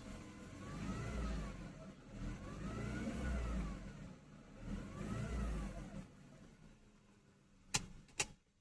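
Mercedes M271 1.8 supercharged four-cylinder engine revved three times, with a high-pitched, almost electric whine that rises and falls in pitch with the RPM. The owner suspects the alternator (diode rectifier or worn bearings) or a dry serpentine-belt idler or tensioner pulley, the supercharger having just been serviced. Two sharp clicks near the end.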